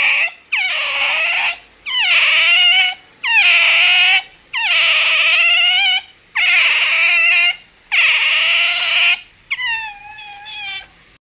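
An animal giving a series of about eight loud, crying calls, each about a second long, that drop in pitch at the start and then hold. The last call is fainter, and the sound cuts off suddenly near the end.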